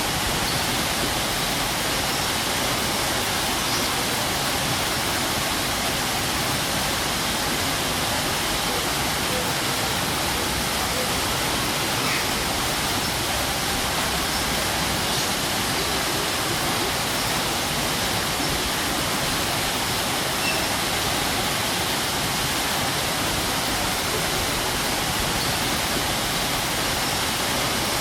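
Strong waterfall: a steady, dense rush of falling water that does not let up.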